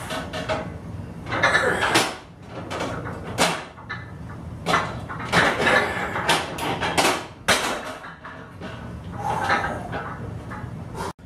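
Metal knocks and clanks from a vertical leg press loaded with about 500 pounds of iron plates, mixed with a lifter's forceful breaths, in irregular loud bursts every half second to a second.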